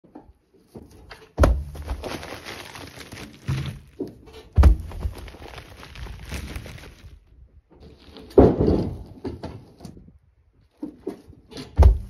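Douglas fir logs being pried off a flatbed trailer, each one dropping to the ground with a heavy thud and rolling on through the bark litter. Four drops, about three to four seconds apart.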